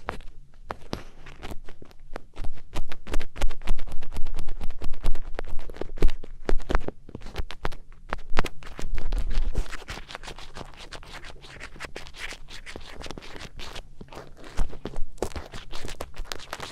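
Close-miked scratching and scraping on a daruma, ASMR ear-cleaning style: dense, irregular crackly strokes with low rubbing thumps. It is loudest for the first half, softer after about ten seconds, with a brief louder patch near the end.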